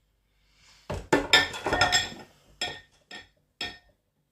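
Crockery clattering and clinking as a dish is handled and set down, followed by three lighter separate knocks.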